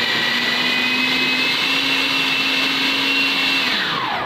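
Anex electric food processor running at full speed, grinding a cooked mince and lentil mixture for shami kabab, its motor whine climbing slightly. Near the end the motor is switched off and winds down with a falling whine.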